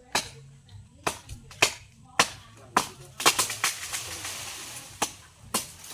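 A series of sharp, hard knocks, about two a second, with a rustling hiss between about three and five seconds in.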